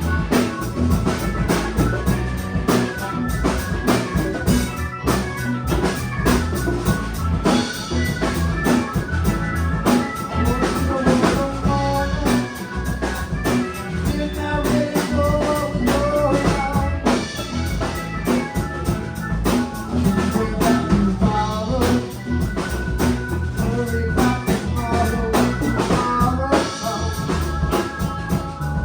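A live rock band playing a song: a drum kit keeping a steady beat under electric guitar and bass.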